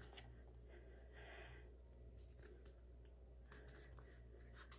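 Near silence: room tone with a few faint clicks and a brief soft rustle about a second in, from handling the album's paper pages and photocards.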